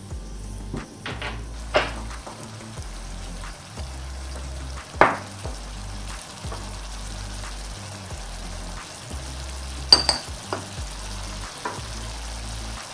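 Carrots and onions sizzling in a frying pan while a silicone spatula stirs and scrapes, with a few sharp knocks and clinks against the pan, the loudest about five and about ten seconds in. A low, stepping bass line of background music runs underneath.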